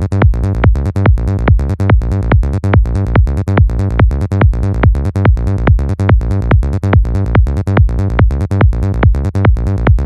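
Psychedelic trance music: a steady, driving kick drum and bass pulsing about two and a half times a second, with electronic synth layers above.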